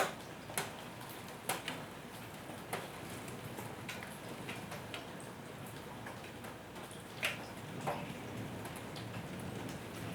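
Light rain: scattered drops tapping irregularly over a steady low hiss, with a few sharper drips standing out, the clearest about seven seconds in.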